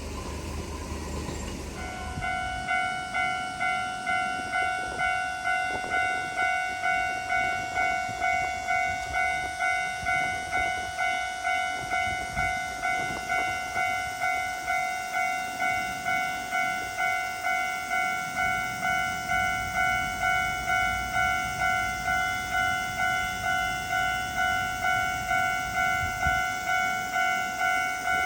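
Japanese level-crossing warning bell starting about two seconds in and ringing steadily, a repeated electronic ding just under twice a second.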